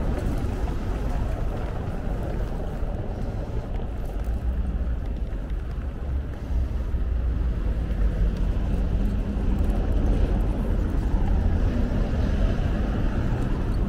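Bicycle rolling along a cobbled city street: a steady low rumble, a little louder from about halfway, with street traffic mixed in.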